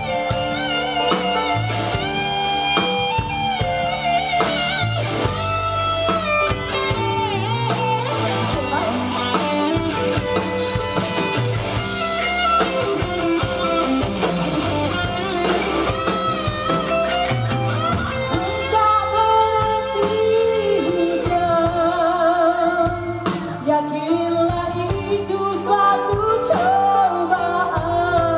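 Live band music: an instrumental passage led by guitar over drums and bass, then a singer comes back in with a wavering, held vocal line about two-thirds of the way through.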